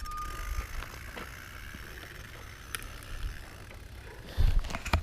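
Full-suspension mountain bike rolling down a rocky, rooty trail: tyres and frame rattling over the ground with scattered clicks, a short steady whine at the very start, and a heavy low knock near the end.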